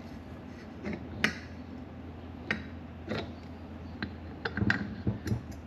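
Alternator pulley and its metal parts being handled and worked off by hand: scattered light metal clinks and knocks, several close together near the end, over a low steady hum.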